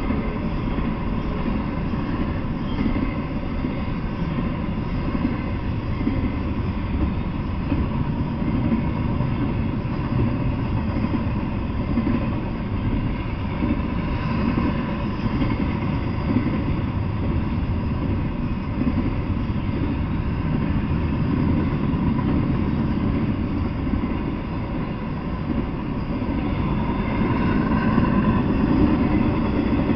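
Double-stack intermodal freight train's container-laden well cars rolling past: a steady rumble of steel wheels on the rails.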